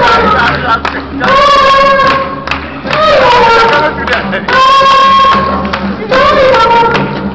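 Drum-accompanied Kankurang masquerade singing: long held, high sung calls, about three phrases each ending in a sliding dip, over a steady patter of hand-drum strokes.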